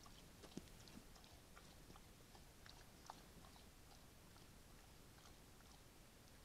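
Faint, irregular crunching clicks over a low hiss: a brown bear feeding close to a trail camera, chewing.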